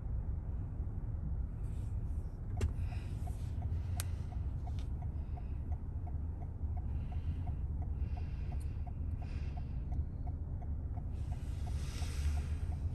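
Car cabin road and engine noise, a steady low rumble, with a turn-signal indicator ticking about two and a half times a second from a few seconds in until near the end.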